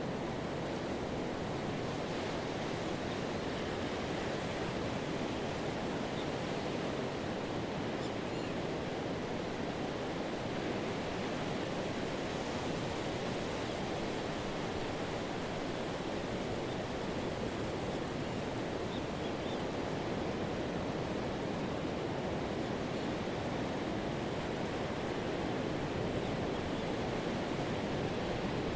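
Pacific surf washing on a sandy beach: a steady, even wash of waves and foam with no single breaker standing out.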